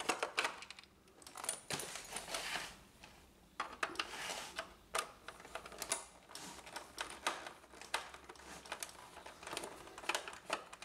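Small screwdriver turning screws out of an Epson WorkForce inkjet printer's plastic side cover: faint, irregular small clicks and short scrapes as the bit works in the screw heads.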